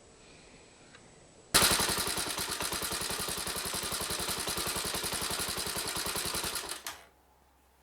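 Honda CBX125's single-cylinder four-stroke engine running with a fast, even beat. It starts abruptly about a second and a half in and stops about five seconds later.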